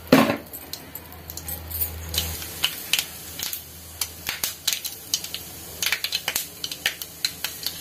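Mustard seeds popping in hot oil in a kadai: sharp, irregular crackles and pops over a faint sizzle, marking the tempering as the seeds burst. A louder clack comes right at the start, and a low hum stops about two and a half seconds in.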